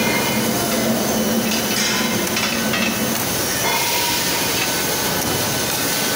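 Steady loud din of an iron foundry floor, heard as a dense rumbling noise as a ladle of molten iron on its rail trolley is pushed along the track. A low hum in it stops about three seconds in.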